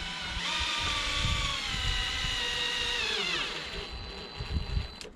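Cordless drill driving a screw into wood. The motor runs at a steady whine for about three seconds, its pitch dipping slightly under load, then winds down with a falling pitch. A click comes near the end.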